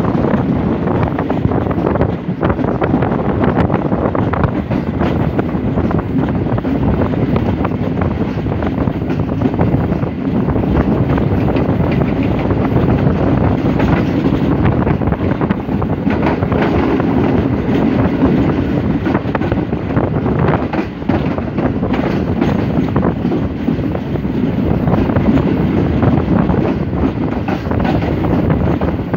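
Pakistan Railways passenger train running at speed, heard from an open doorway of a coach: a steady rumble of wheels on the track, mixed with wind rushing over the microphone.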